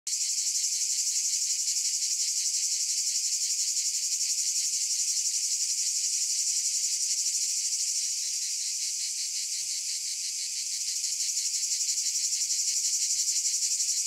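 Cicadas buzzing in a continuous, high-pitched chorus with a rapid pulsing texture, easing slightly in the middle.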